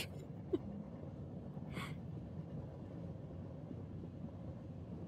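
Steady low rumble of a train carriage running, laid in as cabin ambience, with a short soft hiss about two seconds in.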